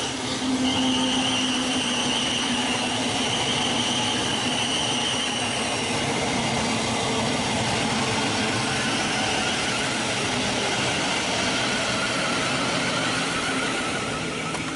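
Thameslink Class 700 electric multiple unit passing at speed: a steady loud rush of wheels on rail and air, with a thin high whine over it. The sound cuts off abruptly near the end.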